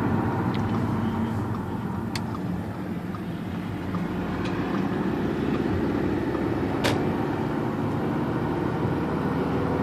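2009 Audi A4 driving through a left turn, engine and road noise steady, with a few sharp isolated clicks from the car, two of them clearest. The clicking started right after a street-density transmission mount was fitted, and shows mostly on left turns; the owner has been told it could be the CV axles, the motor mount or the sway bar end links.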